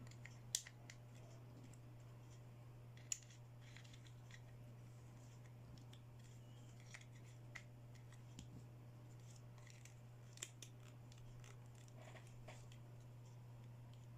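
Sparse sharp clicks and light taps from handling small plastic toy accessories and their packaging, the loudest about half a second, three seconds and ten seconds in, over a steady low hum.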